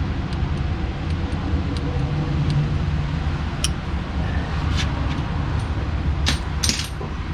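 Scattered small metallic clicks of a torque wrench ratchet as the timing belt tensioner bolt is tightened, a few sharper clicks in the second half, over a steady low rumble.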